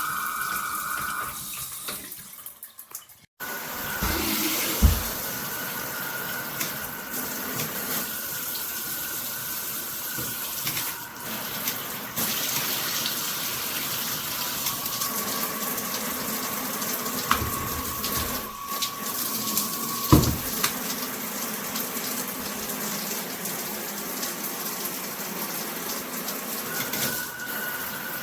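Water spraying steadily from a handheld shower head. The sound drops out for a moment about three seconds in, and two short knocks come at about five and twenty seconds.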